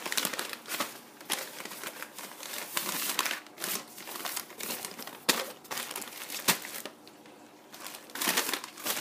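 Packing paper and plastic bags crinkling and rustling in irregular bursts as hands dig through a box of shipped plants, with a couple of sharper snaps past the middle.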